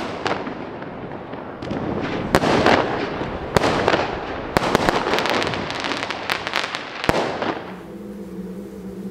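Aerial fireworks going off: many sharp bangs and crackling bursts in quick succession. About seven and a half seconds in they stop, leaving a low steady hum.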